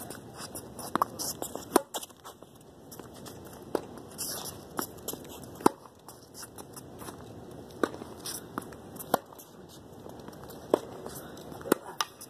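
Tennis rally on a hard court: sharp pops of racquets striking the ball and the ball bouncing on the court, roughly one every second or two.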